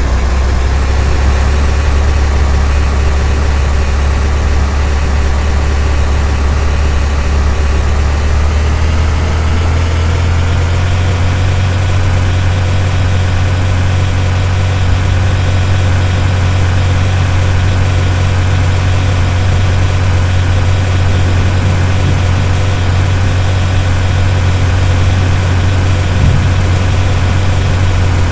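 A motor or engine running steadily with a loud low hum; its pitch rises a little about eight to ten seconds in, then holds.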